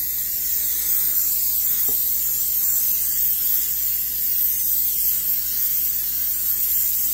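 Aerosol butter cooking spray hissing steadily from the can as it coats a baking sheet.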